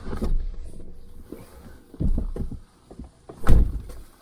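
Pickup truck door being handled: a few dull thumps and rustles, then a loud slam about three and a half seconds in as the door is shut.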